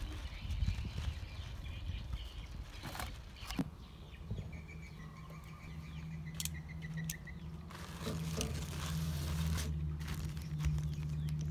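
Wind rumbling on the microphone, then a steady low hum with a few short bird chirps, and from about two-thirds of the way in, thin black plastic bag sheeting crinkling as hands smooth it out.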